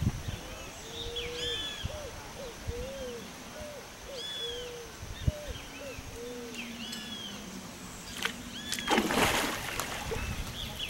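Birds calling outdoors with repeated short notes that rise and fall, some low and some high. About nine seconds in, a loud burst of noise lasts about a second.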